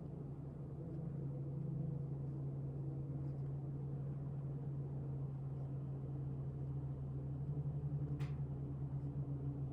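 Steady low mechanical hum, with one short click about eight seconds in.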